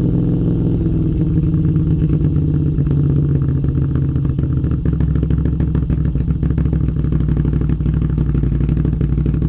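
Moto Guzzi V7's air-cooled transverse V-twin running through an Akrapovic exhaust. The revs drop in the first second, then it settles into a steady, pulsing idle.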